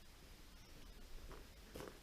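Near silence: room tone with a few faint short scuffs, the clearest near the end.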